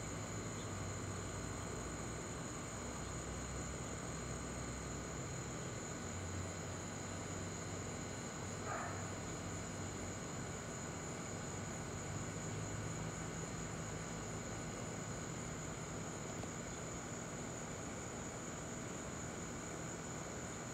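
Steady high-pitched trill of insects such as crickets, over a faint, uneven low rumble from a Boeing 787-10 airliner passing high overhead. A brief faint chirp sounds about nine seconds in.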